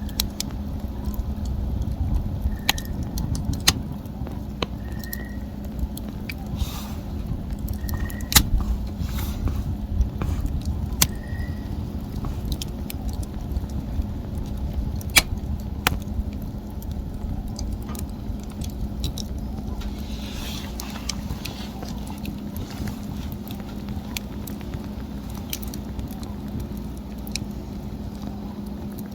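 Wood fire crackling, with irregular sharp pops and snaps over a steady low rumble. Four short high squeaks come a few seconds apart in the first half.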